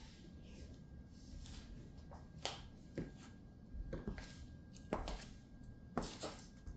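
Stiletto-heeled boots walking on a hard wood-look floor: sharp heel clicks, about one a second.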